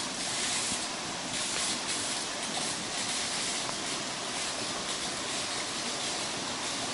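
Steady rushing hiss of flowing water, a stream running below.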